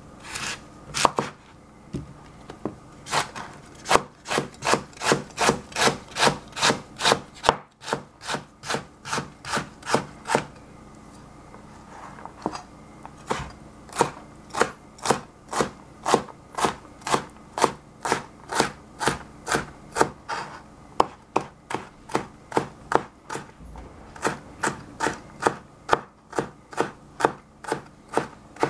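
Chef's knife chopping a fennel bulb on a plastic cutting board: steady, even strokes about two a second, with a pause of about two seconds roughly ten seconds in.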